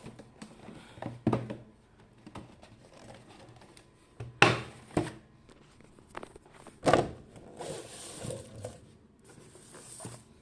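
Cardboard product box being handled: a few knocks and rustles as it is turned over and set down, the loudest about four and a half and seven seconds in.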